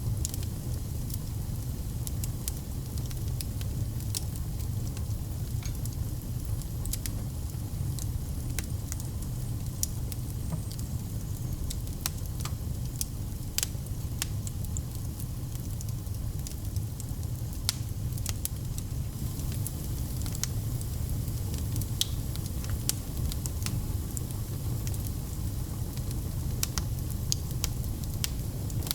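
Fire burning in a fireplace: a steady low rumble with frequent, irregular sharp crackles and pops.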